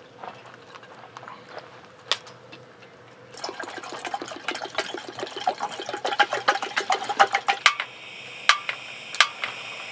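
Dogs eating kibble from steel bowls, with faint clicks. About three seconds in, water is poured from a plastic bottle into a collapsible silicone kettle, glugging steadily for about four seconds, then a gas stove burner hisses steadily with a few sharp clicks.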